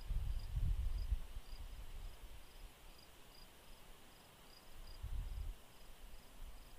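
Crickets chirping steadily, about three short high chirps a second. Low rumbling noise comes in during the first second and again about five seconds in.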